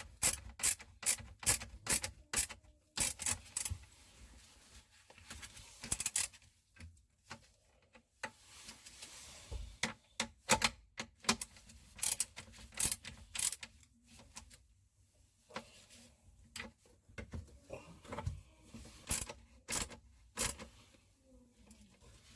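A long run of sharp clicks and knocks at an uneven pace, sometimes in quick clusters of several, with short pauses between runs.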